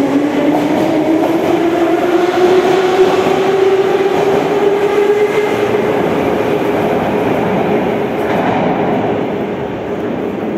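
Moscow metro 81-717/714 ('nomernoy') train's traction motors whining up in pitch as it accelerates away, then holding a steady whine over rail noise that eases slightly near the end.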